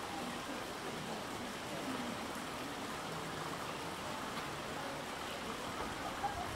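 Steady rushing of running water, with faint indistinct voices in the background and a brief tap near the end.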